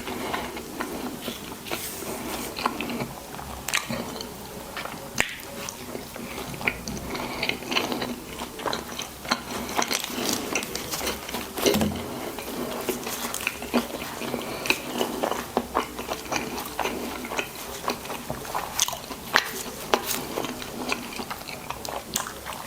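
Close-miked eating sounds: biting and chewing burger and fries, with many irregular wet clicks and crunches.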